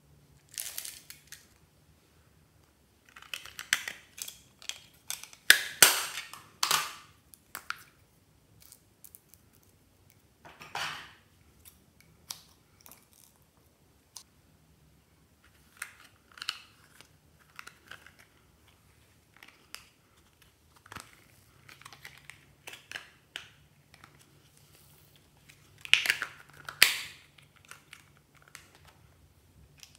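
Small plastic toys being handled and opened: irregular clicks and snaps of plastic lids and casings, with short rattles of small plastic pieces, loudest a few seconds in and again near the end.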